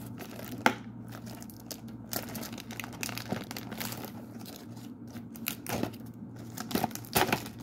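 Clear plastic shrink wrap crinkling and tearing as it is pulled off a trading card box: irregular crackles with sharp snaps, the loudest about a second in and again near the end.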